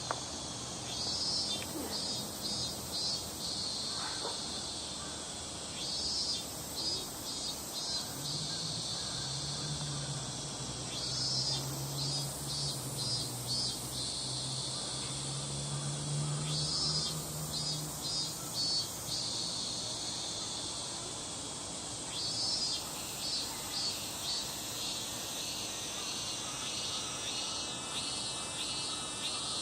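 Crickets chirping: short pulsed trills repeating every few seconds over a steady high insect drone. A low hum rises in the middle and fades.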